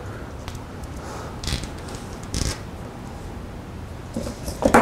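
Light handling noise from thin encoder cable wires and a hand wire stripper: a few soft rustles and small clicks, spaced out, over a low steady background.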